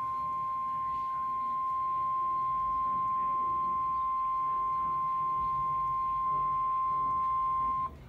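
Emergency Alert System attention signal for a severe thunderstorm warning, played through a TV speaker: one steady high-pitched tone, held for several seconds and stopping just before the end.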